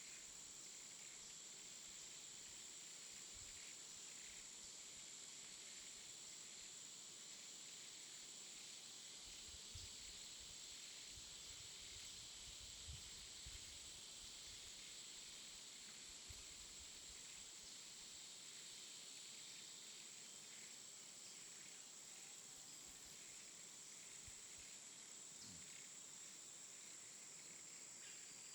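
Faint jungle ambience: insects chirring in one steady, high-pitched drone, with a few faint low knocks near the middle.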